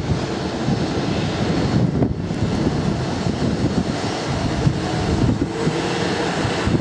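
Steady rumble of jet airliner engines, with wind buffeting the microphone.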